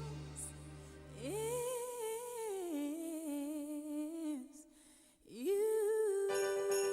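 Two long, drawn-out pitched vocal notes with a wavering pitch, each sliding up at its start; the second is held level, and a bell-like ringing tone joins it near the end.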